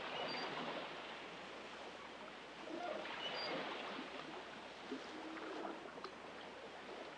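Faint outdoor water ambience: a soft, steady wash of water lapping, with two short high chirps about three seconds apart.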